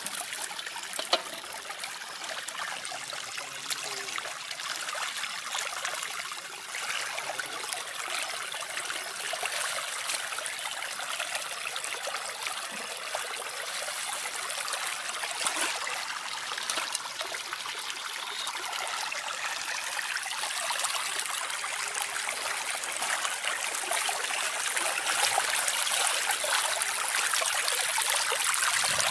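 Water running in a steady current, a continuous rush that grows a little louder over the last third.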